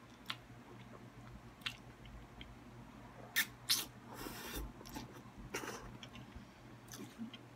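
A person chewing and slurping saucy spaghetti, with a few soft mouth clicks and a short slurp of noodles about four seconds in.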